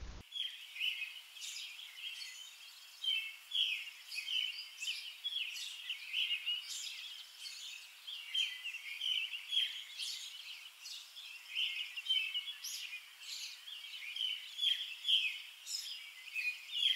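Small birds chirping, a steady stream of short, high chirps overlapping one another.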